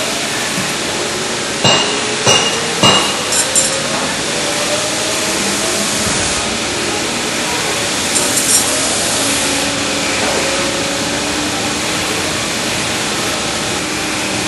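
Knife-grinding machines and their dust extraction running with a steady rushing noise as a blade is worked on a grinding wheel. Several sharp metallic clinks come about two to four seconds in, and a few more near eight seconds.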